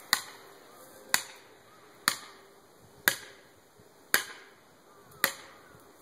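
Six sharp metal-on-wedge blows about a second apart, each with a short ring: a felling wedge being hammered into the back cut of the tree.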